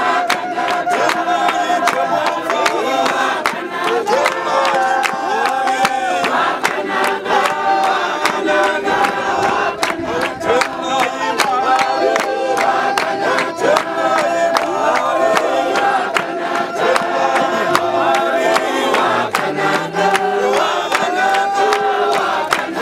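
A church congregation singing together, many voices at once, to steady hand clapping.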